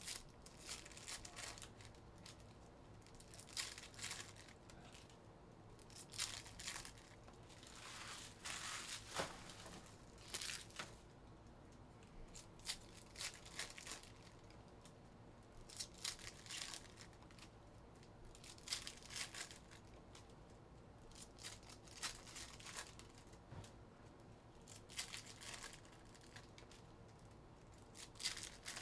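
2022 Donruss Elite football card foil packs being torn open and their wrappers crinkled: quiet bursts of tearing and crinkling every two to three seconds, one longer stretch about a third of the way in.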